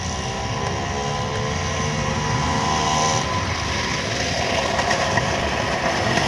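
Old British motorcycle engines running among a group of bikes: a low rumble throughout, with one engine's steady note standing out for about the first three seconds before it fades into the rougher mix.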